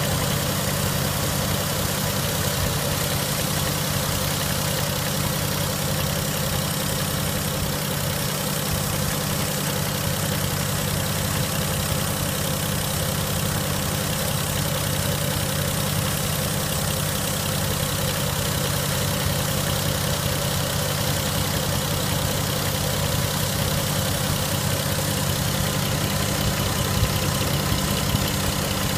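Vehicle engine idling steadily. The uploader presents the sound as an abnormal noise, but does not say what the fault is.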